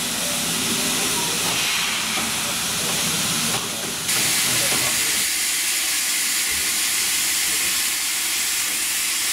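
Steam locomotive letting off steam: a steady, loud hiss that dips briefly about three and a half seconds in and comes back louder.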